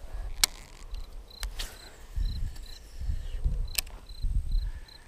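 A cricket chirping steadily, a short high chirp repeating a little more than twice a second. A few sharp clicks and low rumbles of handling noise come through over it.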